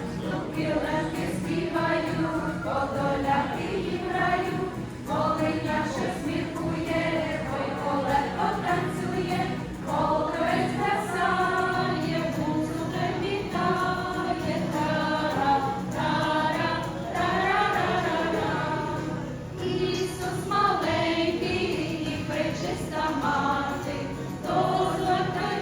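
A choir singing a Ukrainian song together, the voices continuing throughout.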